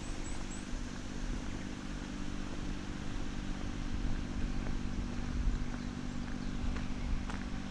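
A vehicle engine running with a steady low hum, over a low rumble.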